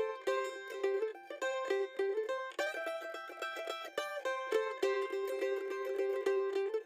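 Background music led by a plucked string instrument, picking quick repeated notes in a steady rhythm.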